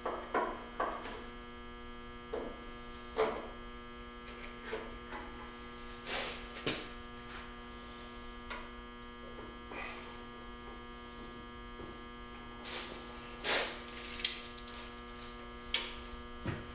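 A steady electrical hum with many evenly spaced tones runs throughout. Over it come about a dozen scattered short knocks and taps of metal work on the steel truck frame being lined up, the loudest ones near the end.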